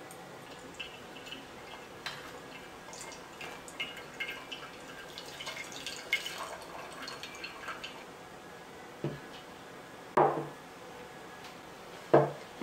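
Maple syrup pouring from an upturned plastic bottle onto slices of campagne bread: many small wet, sticky clicks and drips. Near the end come three louder soft knocks, about a second apart.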